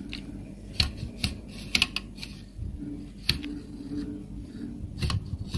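Dot matrix printer's print-head carriage moved by hand along its rail, its timing belt and gears giving irregular sharp clicks with a low rubbing noise between them. The noise is abnormal, and the technician puts it down to the belt rather than the bushing and asks whether the belt is slipping.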